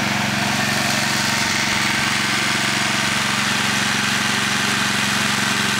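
Portable generator's 7.8-horsepower engine running steadily on wood gas from a homemade wood-pellet gasifier instead of gasoline.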